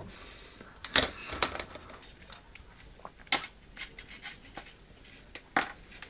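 Scattered clicks and taps from hands handling a small neon bulb and crocodile-clip leads on a bench, about four in all, the sharpest about halfway through.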